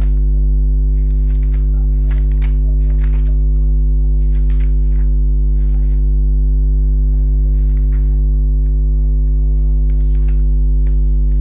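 Paper book pages being flipped in quick succession, a short rustle every half second to second, over a loud steady electrical mains hum that runs under everything.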